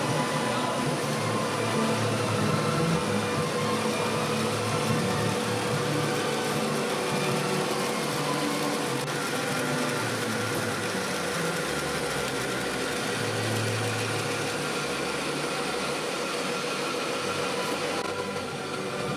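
Steady mechanical running noise of paper straw production machinery, the drying and single-straw packing machines working continuously, with a faint steady hum in it.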